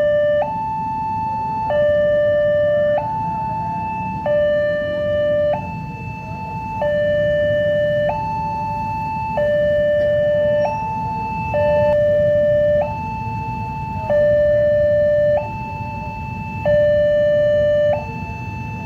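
Railway level-crossing warning alarm sounding an electronic two-tone signal, alternating high and low about every 1.3 seconds, warning that a train is approaching. A low rumble of waiting traffic runs underneath.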